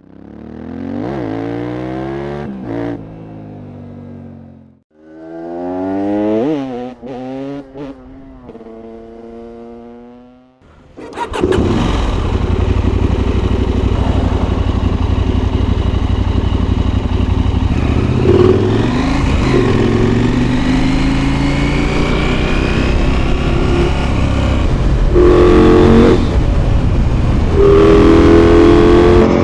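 KTM 890 SMT's parallel-twin engine revved twice, its pitch rising and then falling away. From about eleven seconds in, a loud steady rush of wind noise covers the engine as the bike is ridden. The engine note climbs under acceleration a few times near the end.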